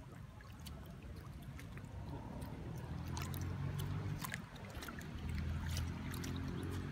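Small water splashes and drips from a monkey moving in a pond, as short sharp clicks, over a low rumble that swells about two seconds in and again after five seconds.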